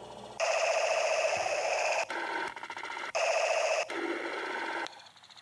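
A sound effect played back through the Plogue Chipcrusher plugin, giving a lo-fi, bit-crushed, buzzy electronic tone like an old game chip. It comes in abrupt blocks about a second long, switching between two warbling tones, and drops quieter about five seconds in.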